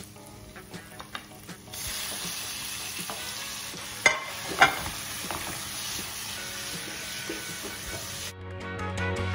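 Flaked salmon scraped off a plate into a skillet of hot oil with peppers and onions, sizzling steadily from about two seconds in. A silicone spatula stirs it, knocking sharply against the pan twice around the middle. The sizzle cuts off near the end.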